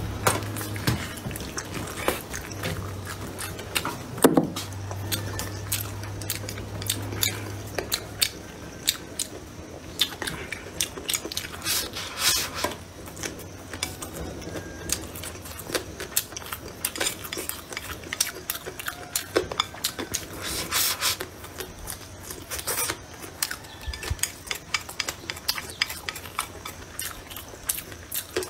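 A person chewing a mouthful of rice and stir-fry close to the microphone, with frequent short clicks and taps of wooden chopsticks against a ceramic bowl. A low hum sounds during the first several seconds.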